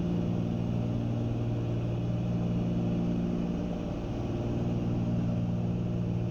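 Cessna 310's twin piston engines and propellers droning steadily in cruise, heard from inside the cabin, with a slight dip in level about four seconds in.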